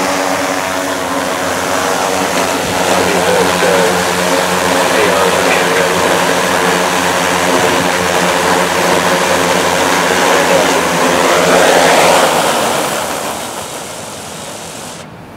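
Large four-rotor drone's propellers whirring with a steady buzz of several stacked tones as it comes down onto its landing pad. About two-thirds of the way through the rotors wind down and the sound fades, then cuts off.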